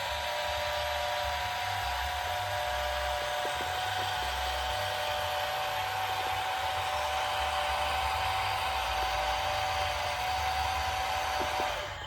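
Small electric motor of a remote-control construction model whining steadily, a fixed high tone over a hiss; it cuts off near the end.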